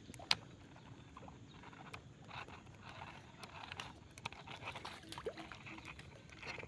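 Faint, irregular clicks and ticks from a baitcasting reel and rod being handled as a lure is reeled in from a small boat, with a sharper click just after the start and light water sounds.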